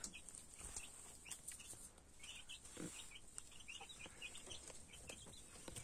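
Faint, quick chirps from caged quail, scattered throughout and coming most often in the middle.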